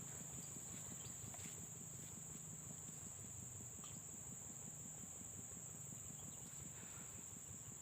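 Steady, high-pitched drone of insects, one unbroken band of sound, with a few faint clicks.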